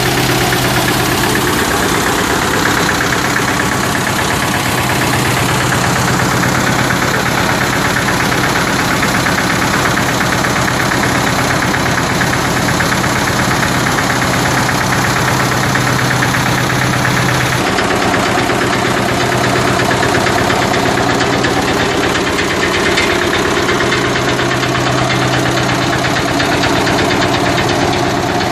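Vintage Deutz diesel tractor engine running steadily with a fast knocking beat, driving a threshing machine through a long flat belt from its belt pulley. The tone shifts a little about eighteen seconds in.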